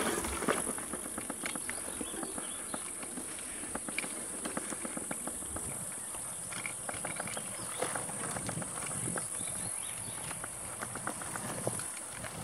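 Mountain bike rolling along a narrow dirt trail through tall grass, with a steady run of small irregular rattles and clicks from the bike and brushing stalks, over a continuous high-pitched hiss.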